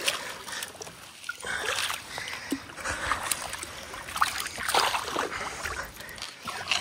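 Shallow river water splashing and sloshing in irregular bursts, busiest in the middle, as a fish weir of driven stakes is pulled apart in the stream.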